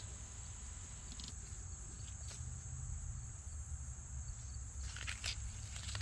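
Insects trilling steadily at a high pitch over a low wind rumble on the microphone, with a few faint clicks.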